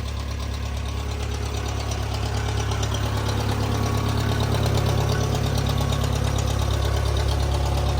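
Engine of a 1959 Case loader-backhoe running steadily at idle, getting gradually louder over the few seconds.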